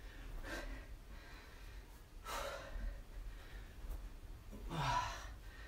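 A man breathing hard through sit-ups: three forceful exhales about two seconds apart, the last and loudest with a short low voiced grunt in it.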